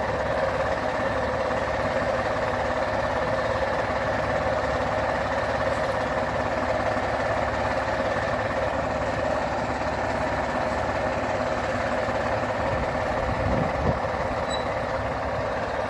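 Tractor engine running steadily at low speed while pulling a mounted inter-row weeder through the field, with one short knock near the end.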